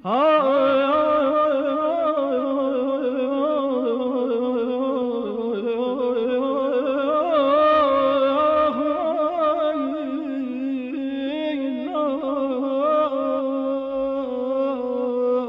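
Male voice singing Persian classical avaz in dastgah Nava: one long, unbroken phrase with wavering, trilled ornaments that begins sharply at the start.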